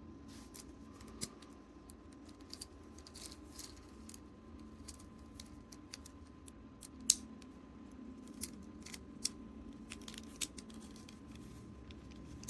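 Scattered small clicks and taps of hands handling a plastic Bakugan toy and picking its tape wrapper off, with one louder click about seven seconds in.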